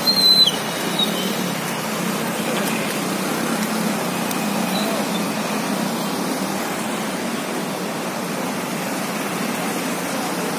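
Floodwater rushing across a road, a steady even rush of moving water. A brief high squeak at the very start.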